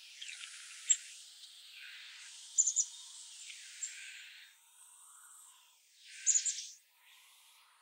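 Townsend's warbler bathing in a stone birdbath: short bursts of wing-splashing in the water near the start and again about six seconds in, with a few sharp ticks, over a steady background hiss.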